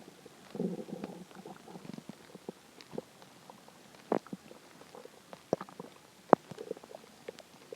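A hungry, empty human stomach growling: a low gurgling rumble about half a second in, then a string of short gurgles and pops, the sharpest about four, five and a half and six seconds in.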